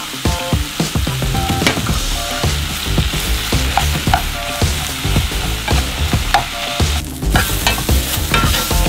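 Mushrooms, onions and tomatoes sizzling in hot beef and bison fat in a pan, stirred and scraped with a metal spatula. The sound dips briefly about seven seconds in, then the sizzling and stirring of diced onions and peppers in a cast iron skillet carry on.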